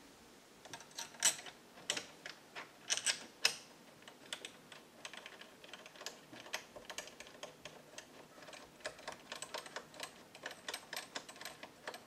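Door knob hardware clicking and rattling as the knob and its rose are twisted and worked by hand: a few sharper clicks in the first three seconds or so, then a quick run of light ticks.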